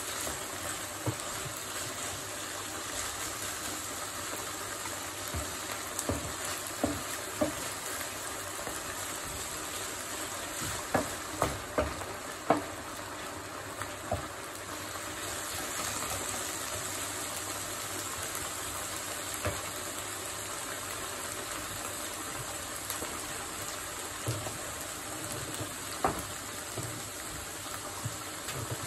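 Rice simmering in water in one frying pan and minced meat with peas sizzling in another, a steady sizzle and bubble, with a wooden spatula now and then knocking and scraping against the pans as they are stirred.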